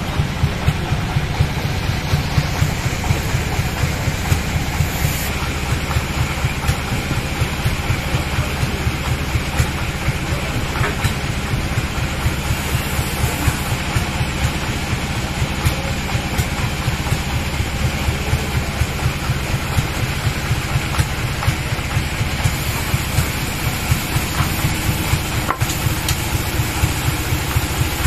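Sawmill engine running steadily at idle with a fast, even low pulse. The saw is not cutting.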